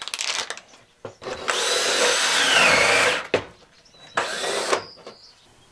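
Cordless drill driving screws in two runs: a two-second run whose whine drops in pitch as the screw tightens, then a short burst about four seconds in. A plastic parts packet crinkles at the very start.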